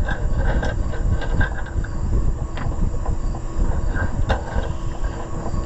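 Small clicks and rattles of electrical wire and a spade connector being handled and fitted, over a steady low rumble.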